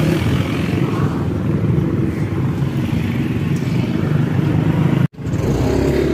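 Motorcycle engine running steadily while riding, with wind and road noise over the microphone. The sound drops out for an instant about five seconds in.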